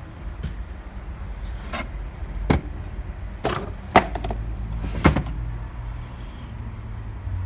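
Irregular sharp clicks and knocks, about half a dozen, as small metal parts and tools are handled and set down, over a low steady hum.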